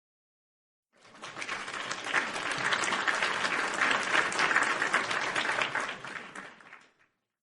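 Crowd applause: a burst of many hands clapping that swells in about a second in, holds steady, and fades away near the end.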